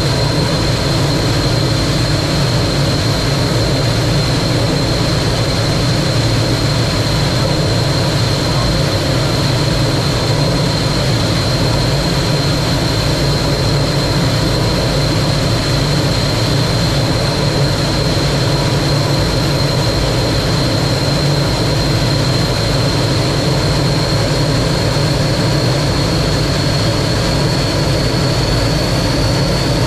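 T-33 jet trainer's single turbojet engine running steadily in flight: a loud, continuous rumble and rush of air with a thin high whine that creeps slightly higher in pitch near the end.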